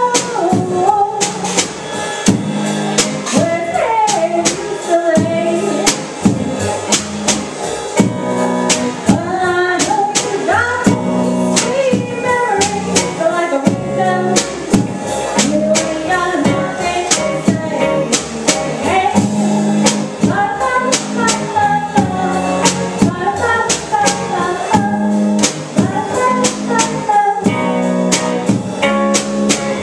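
Live band music: a woman singing into a microphone over a drum kit keeping a steady beat on the cymbals, an upright bass and a guitar.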